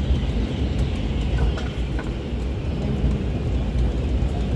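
Engine and road noise of a moving vehicle heard from on board: a steady low rumble.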